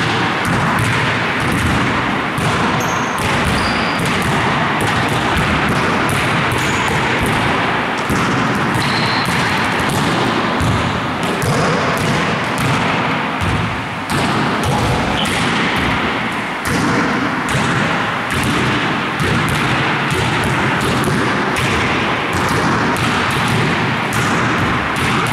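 Basketballs bouncing and thudding during passing drills: a dense, continuous run of balls striking the floor and hands, with a few short high squeaks.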